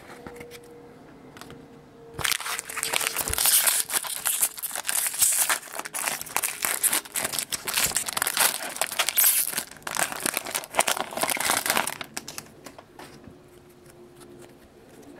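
Foil wrapper of a Topps jumbo pack of baseball cards being torn open and crinkled by hand. A dense crackle starts about two seconds in and dies down near the end.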